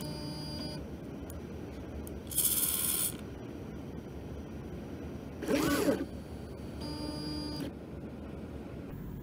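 Stepper motors of a gantry robot driving its axes in a series of short moves, each a steady whine of a few tones lasting under a second. About two and a half seconds in comes a hissier burst, and in the middle comes the loudest move, its pitch rising and then falling.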